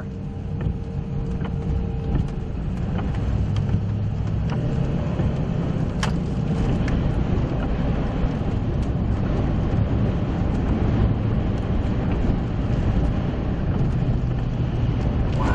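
Steady low rumble of a moving vehicle, heard from inside the cab, as strong storm winds gust against it. A faint held tone sounds for the first couple of seconds, and there are a few brief ticks.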